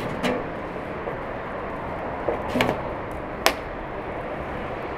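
A few short knocks and clanks as a bucket and a large metal cooking pot are handled and set down, over a steady background hiss; the sharpest click comes about three and a half seconds in.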